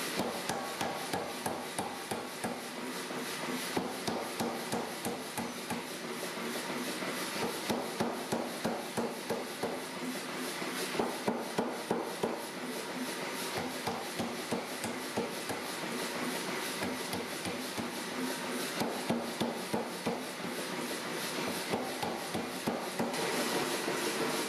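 Steel being struck again and again with a hammer, about two to three blows a second, over a steady hiss.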